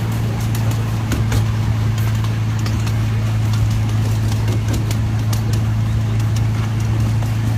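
Miniature train locomotive's engine running with a steady, even drone as the train rolls along, with scattered sharp clicks from the wheels on the track.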